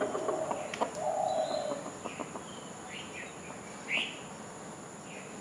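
Birds chirping: a string of short, quick chirps over a few seconds, the loudest about four seconds in, with a low drawn-out call about a second in.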